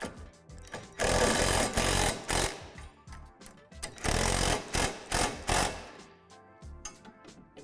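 Ridgid cordless impact driver hammering rapidly in two bursts, about a second in and again about four seconds in, as it runs nuts down onto the basketball rim's spring-loaded U-bolts. Background music plays underneath.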